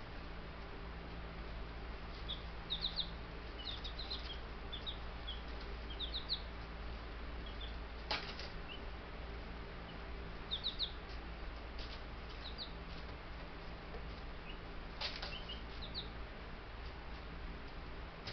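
Baby Buff Brahma chicks peeping: short high chirps, often in quick twos and threes, with a few brief rustles or wing flutters, over a low steady hum.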